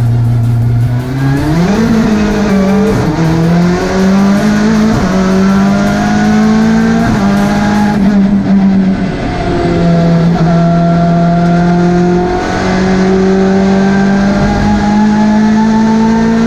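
BTCC touring car's 2.0-litre turbocharged engine heard from inside the cockpit: a steady low note that starts to climb about a second in, then revs rising slowly and dropping back several times as the car accelerates and shifts up.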